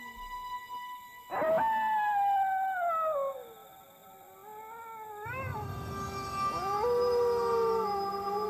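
A dog howling: a long howl rises sharply about a second in and then slowly falls away, and a second howl begins past the middle over a low rumble and holds on.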